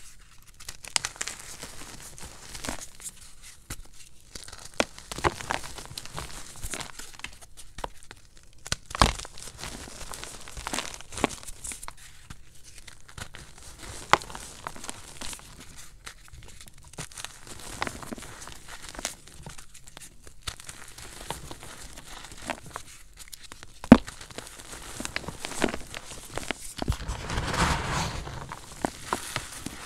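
Hands crushing and crumbling pressed gym chalk cakes and loose chalk powder in a plastic tub: an irregular soft crunching and crackling, with a few sharper snaps as chunks break and a denser stretch of crunching near the end.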